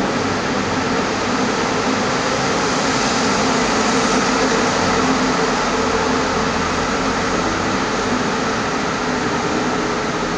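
Steady drone of cars driving at an even pace through a road tunnel, heard from inside a following car: road and engine noise with no revving.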